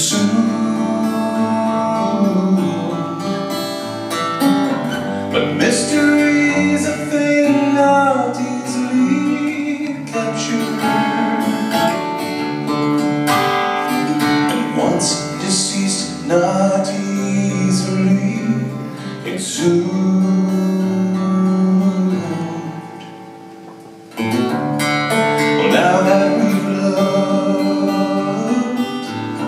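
A man singing to his own strummed Takamine acoustic guitar. The music fades down briefly about three quarters of the way through, then comes straight back in.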